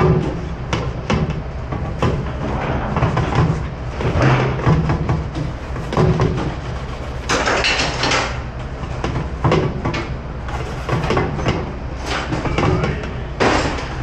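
Stainless steel pans being scrubbed and knocked about in a commercial pot sink, with frequent short clatters of metal and dishware over a steady low machinery hum.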